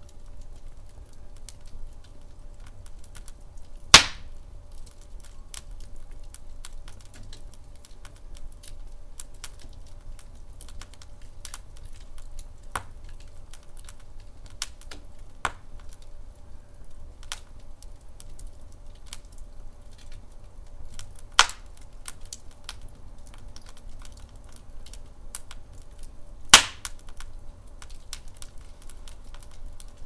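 Douglas fir logs burning in a fireplace, crackling with many small scattered clicks over a low steady rumble. Three much louder sharp pops stand out, one about four seconds in and two in the last third.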